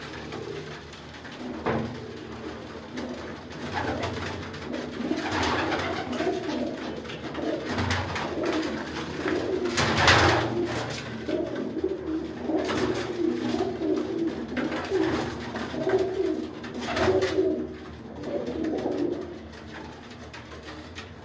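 A flock of domestic pigeons cooing continuously in a small enclosed loft, many birds overlapping. A few brief louder noises stand out, the loudest about halfway through.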